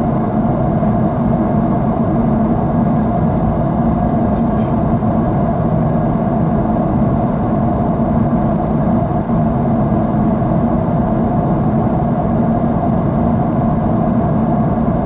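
Jet airliner cabin noise: the engines and the airflow over the fuselage make a steady, low, even drone.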